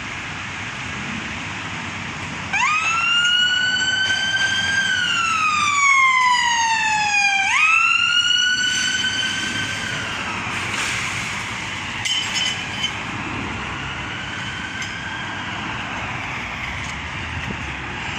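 An emergency vehicle's wailing siren starts a few seconds in, rising and falling slowly in pitch, about one sweep every five seconds, then fades away over steady traffic noise.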